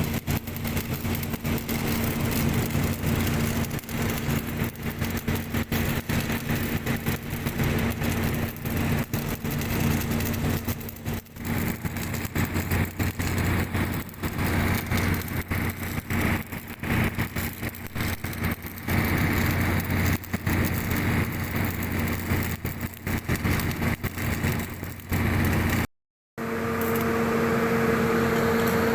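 An engine running steadily with constant rattling clatter. After a sudden cut near the end, a different steady machine sound with a higher whine takes over.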